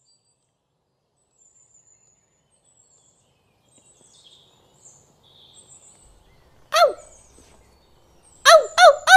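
Faint bird chirping, then a cartoon dog whimpering: one short whimper falling in pitch about seven seconds in, and three quick whines near the end.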